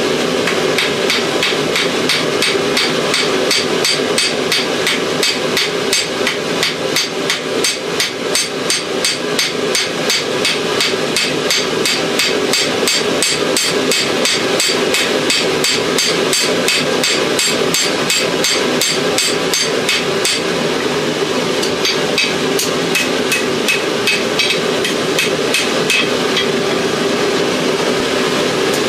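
Hand hammer striking hot steel on an anvil in a steady rhythm of about three blows a second, drawing out an old file into a knife blade, over a steady hum. The blows break off briefly about two-thirds of the way through, then carry on.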